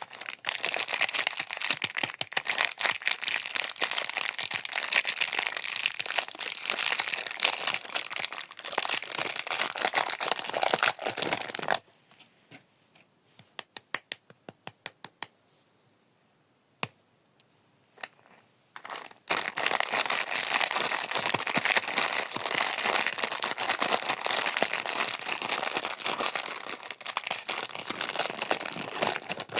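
Candy and cookie wrappers crinkling and tearing as snacks are unwrapped by hand. The crinkling stops for several seconds about twelve seconds in, leaving a quick run of small sharp clicks and a couple of single ticks, then starts up again.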